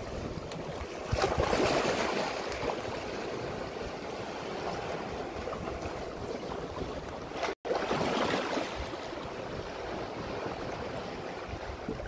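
Sea waves washing in and swirling between shore rocks, swelling about a second in and again past the middle. The sound cuts out for a split second just before the second surge.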